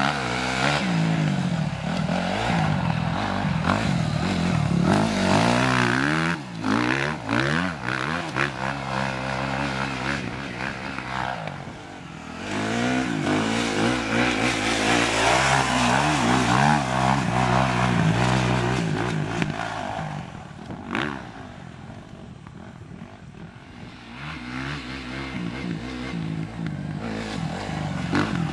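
Suzuki RM-Z250's single-cylinder four-stroke motocross engine revving hard and backing off again and again, its pitch climbing and falling as the rider accelerates and shuts off around the track. It drops away for a few seconds past the middle, then builds up again.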